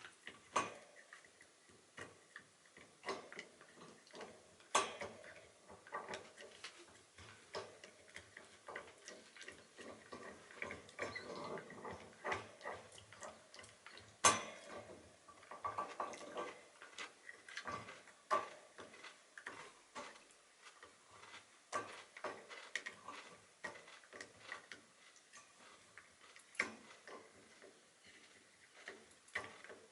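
Shiba Inu gnawing a dried horse hoof: irregular clicks and scrapes of teeth on hard hoof, with a sharper crack about five seconds in and another about fourteen seconds in.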